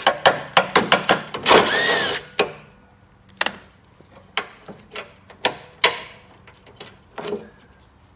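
DeWalt cordless drill with a socket backing out a 13 mm bolt: quick clicks and short bursts at first, then one run of under a second about two seconds in, its pitch wavering with the load. After that, scattered clicks and knocks of the loosened metal chute parts being handled.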